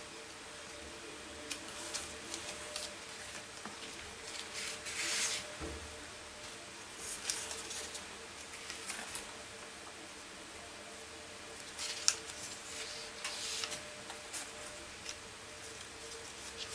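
Paper being handled: pages of a booklet turned and sheets of acid-free lino-print paper lifted and slid out of an archival hardbox, in short rustling, sliding bursts with a few sharp clicks.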